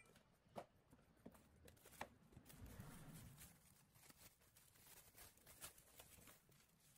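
Near silence: room tone with a few faint, sharp clicks and taps.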